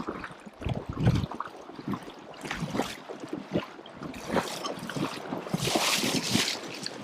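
A person wading through shallow marsh water in waders: irregular sloshing, splashing steps, with a longer, hissier stretch of splashing near six seconds in.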